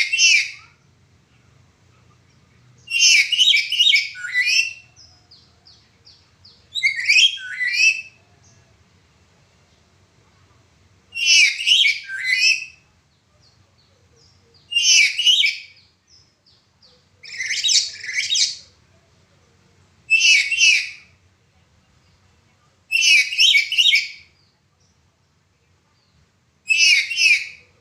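Black-capped lory calling in harsh, cracked-sounding bursts of rapid squawks. Each burst lasts about a second and comes every three to four seconds, about eight times.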